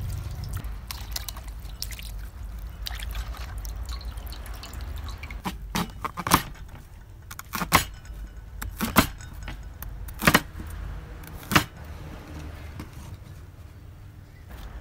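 Peeled elephant foot yam stalks being rubbed and rinsed by hand in a steel bowl of water, with dripping and light splashing. About five seconds in, a knife chops through the stalks onto a wooden cutting board: about eight sharp chops, a second or so apart.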